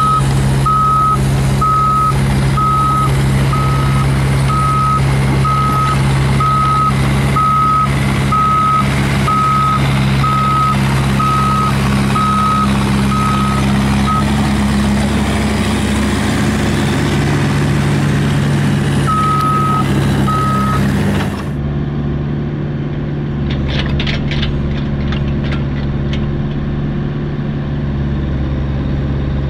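Volvo EC45 mini excavator's diesel engine running steadily while its travel alarm beeps about once a second as the machine tracks. The beeping stops about halfway, comes back briefly, and then the engine is heard from inside the cab with a few light clicks.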